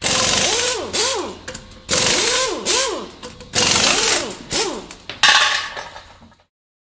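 Animated logo sound effects: a series of rushing whooshes, each carrying a swooping tone that rises and falls, recurring about every second and a half. They fade out and stop shortly before the end.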